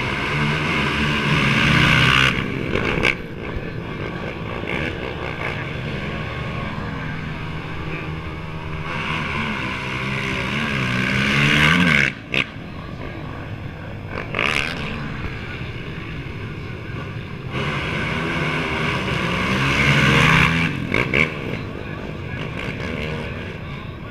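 A pack of racing quad ATVs accelerating hard off the start and passing close by. Their engines rise in pitch and swell to a peak, in three waves about nine seconds apart.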